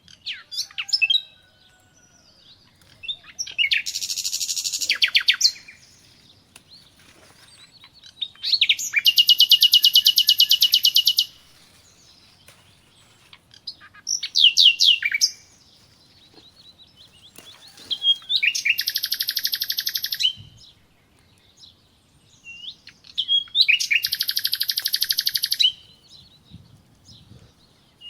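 A songbird singing: about four long, fast, high trills of some two seconds each, with shorter chirps between them.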